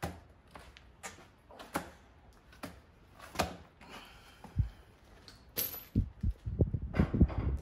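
Heavy spare wheel, a large off-road tyre on a steel rim, being handled and hung on a Land Rover Defender's rear tailgate wheel carrier: scattered knocks and scuffs, a brief squeak, then a quick run of low thumps and metal rattles near the end as the wheel is pushed onto the carrier.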